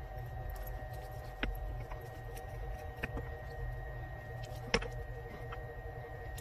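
Hand-carving a wooden lure body held in a bench vise: a few short, sharp clicks and light knocks from the carving tool and the wood, the loudest a little before five seconds in, over a steady low hum.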